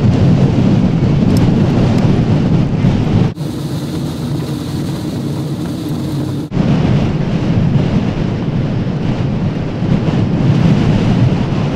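Strong wind buffeting the microphone: a loud, rough rumble. From about three seconds in to about six and a half it cuts to a quieter, steadier rushing noise aboard the wind-powered land yacht, then the buffeting returns.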